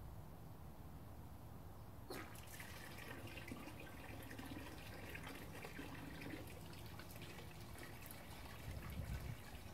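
Water splashing and trickling from the fittings of a homemade hydraulic ram pump into the barrel, starting suddenly about two seconds in.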